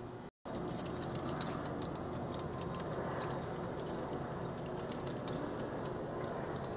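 Light, irregular mechanical ticking and clicking over a steady low hum.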